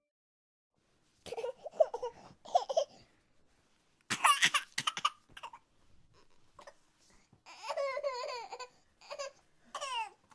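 A baby babbling and giggling in several short bursts with pauses between them, the pitch sliding up and down.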